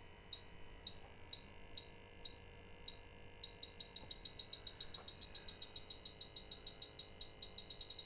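Bacharach H10 Pro refrigerant leak detector ticking with short, high beeps: slow at about two a second, then speeding up to five or six a second about three and a half seconds in as the probe nears an R-134a leak in the coil. The faster rate is the detector sensing the leak, though not at its full screaming alarm rate.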